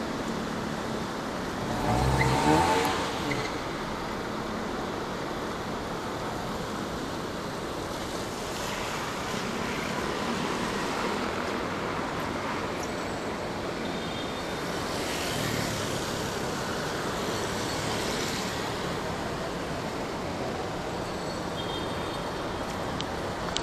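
Street traffic: cars passing on the road, with one vehicle's engine passing close and loud about two seconds in, then a steady hum of traffic with a few more cars going by.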